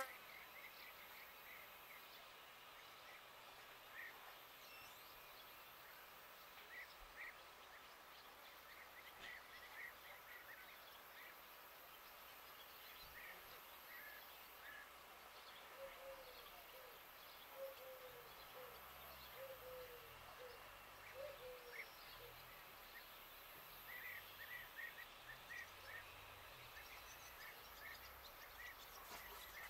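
Faint rural outdoor ambience with distant birds chirping on and off, and a run of short, lower-pitched calls a little past the middle.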